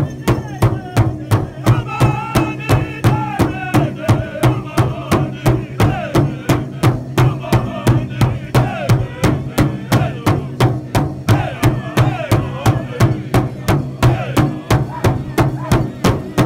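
Powwow drum group beating a large hide-covered drum in unison with drumsticks, a steady beat of about three strikes a second. The group sings over it in high voices, the singing entering about two seconds in.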